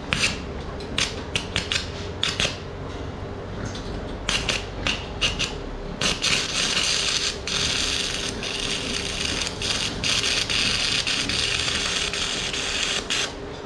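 Electric arc welding on steel tube: several short crackling bursts as the arc is struck and breaks, then about seven seconds of steady sizzling crackle as a bead is run, stopping shortly before the end.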